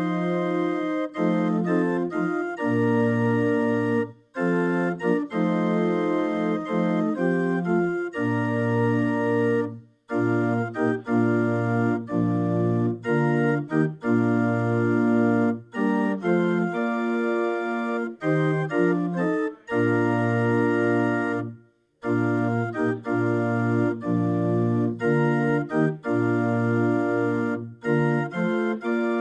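Organ playing a hymn tune in sustained full chords, phrase by phrase, with brief breaks between phrases.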